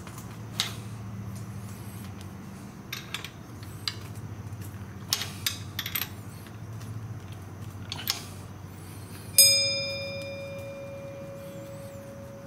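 A few light clicks and knocks of metal tools being handled, then about nine seconds in a single sharp metallic clang that rings on and fades over about three seconds.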